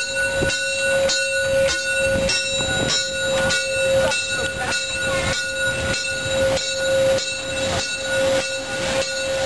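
Class 58 (Prussian G 12) steam locomotive rolling slowly past at close range: a regular beat just under twice a second, with a steady tone held throughout.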